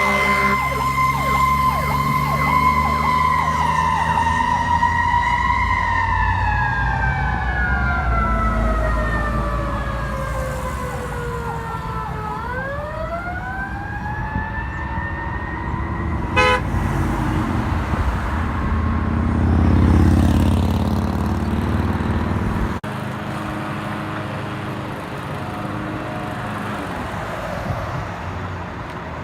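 Fire truck's Federal Q2B mechanical siren holds its high wail, then winds down slowly to a low growl and is spun back up before it stops, over a diesel engine's rumble. The engine rumble swells as the truck passes, then the sound cuts to quieter road traffic.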